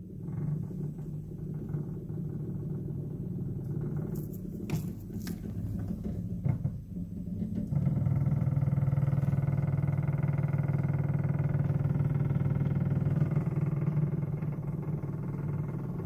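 Samsung refrigerator running with a loud, steady low hum that grows louder about eight seconds in, the noise held up as the sign of a defective unit. A few light clicks come around four to five seconds in.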